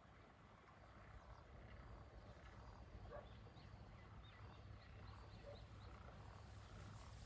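Faint outdoor ambience: a steady low rumble with scattered faint, short chirps from small creatures.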